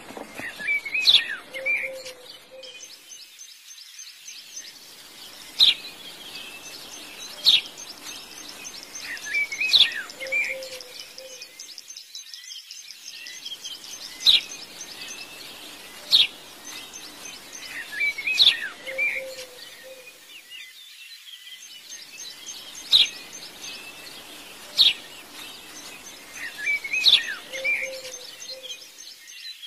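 Birds calling: sharp high chirps and short twittering phrases over a steady hiss, the same sequence repeating about every nine seconds like a looped birdsong track.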